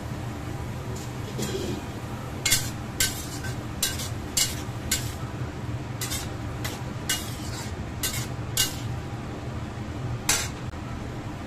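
Metal spatula stir-frying vegetables and shrimp in a stainless steel wok, knocking and scraping against the pan about a dozen times, the loudest knock near the end.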